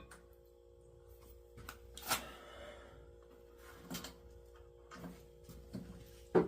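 A few scattered knocks and rustles of things being handled, the sharpest about two seconds in and at the end, over a faint steady hum.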